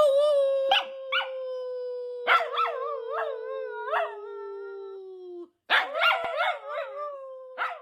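Dog howling: one long drawn-out howl that slowly sinks in pitch, with a second, wavering howl joining in at about two seconds and again near six seconds.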